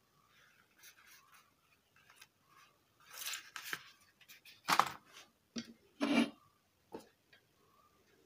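Hand work with small metal parts on a workbench: a scraping rub about three seconds in, then several sharp clicks and knocks.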